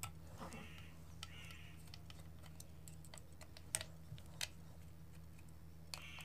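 Faint, scattered clicks and taps of hands working on a plastic LED street-light housing and its driver box while opening it, with two sharper clicks a little past halfway. A low steady hum lies underneath.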